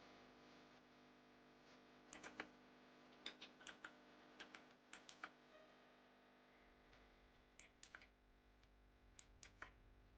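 Faint clicky keystrokes on a Tsunami MK68 mechanical keyboard with Outemu Blue switches, typed in short bursts of a few keys at a time over a low steady hum.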